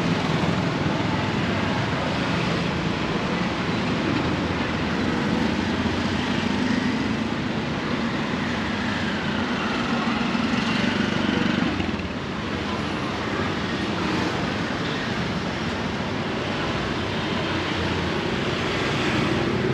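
Steady city street ambience: road traffic running past continuously, with faint chatter in the background.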